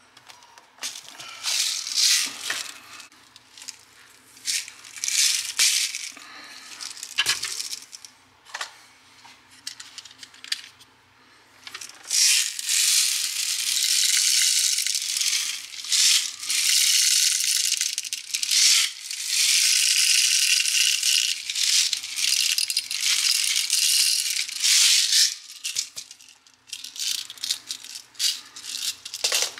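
Copper-coated BBs rattling as they are poured from a bottle's spout into a Crosman AK-47 BB gun magazine. Short rattles at first, then long continuous pours through the middle, then short rattles again near the end.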